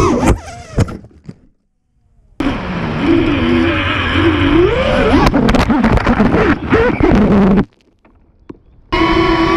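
FPV quadcopter's brushless motors and propellers whining, recorded by its onboard camera, the pitch swinging up and down with the throttle. Sharp knocks as it strikes branches and crashes, and the sound cuts off abruptly twice.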